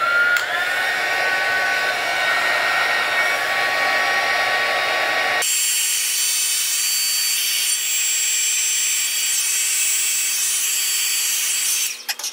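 Handheld electric heat gun running loud, a steady rush of air with a fan whine, used to shrink heat-shrink sleeves over solder joints. The sound changes abruptly about five seconds in to a thinner, higher hiss, and it cuts off near the end.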